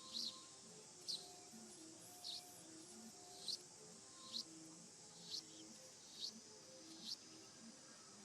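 Short high chirps repeating about once a second over faint, soft background music.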